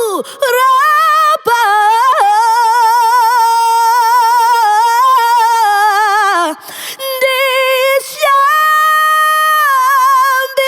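A woman singing unaccompanied, holding long high notes with a wide vibrato and sliding between them, with a brief breath about two-thirds of the way through. It is a vocal test recorded through a Warm Audio WA-19 dynamic studio microphone.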